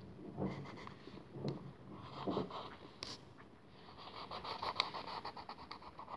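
Graphite pencil sketching on paper: quick, repeated scratchy strokes, densest in the second half.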